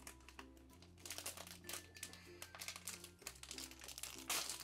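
Crinkling packaging as toy items are unwrapped: a run of small crackles, the loudest near the end, over light background music.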